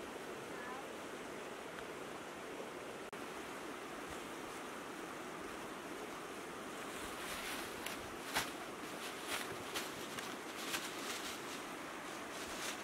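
A steady rushing outdoor hiss, then from about seven seconds in a run of sharp clicks and crackles as lumps of charcoal are stirred with a stick and tipped out of a plastic bag onto the fire bed; the loudest click comes about eight seconds in.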